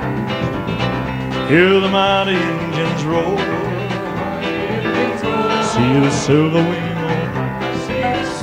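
Live concert recording of a male singer with a country-style band: a slow country ballad with sung phrases over guitar and rhythm section. The voice scoops up into a phrase about a second and a half in and comes back with another phrase near the middle.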